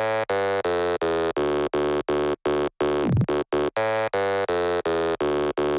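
Electronic music: a synth chord pulsing about three times a second, with a falling sweep about three seconds in.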